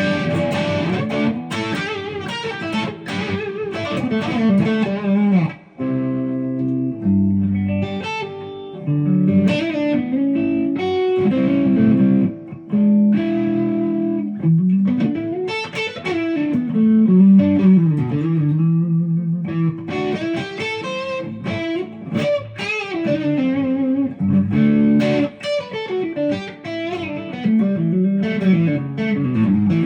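1974 Ibanez Rocket Roll electric guitar played through a crunch (lightly overdriven) amp tone, picking single-note lead lines and riffs with string bends and slides.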